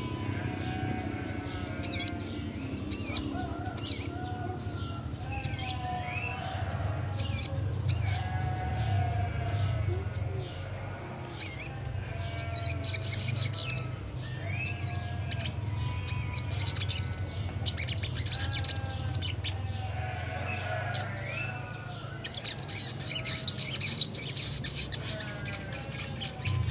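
A young sogon bird singing continuously: sharp high chirps and short warbled phrases repeated again and again, over a steady low hum.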